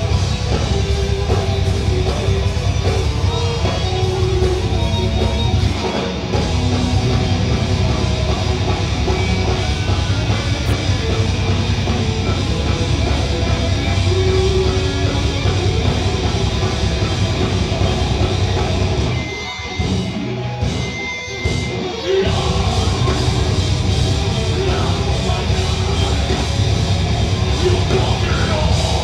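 A metal band playing live: distorted electric guitars, bass and drum kit at full volume. Around twenty seconds in, the band cuts out briefly twice in quick stop-start breaks before coming back in together.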